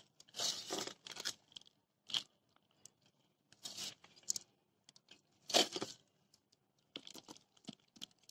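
Hands scooping a soil and cow-dung potting mix from a basin and dropping and pressing it into a small plastic pot: gritty scraping and crumbling in several short bursts, the loudest about five and a half seconds in.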